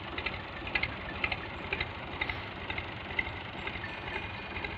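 A machine running steadily with a low rumble and sharp, even clicks about twice a second.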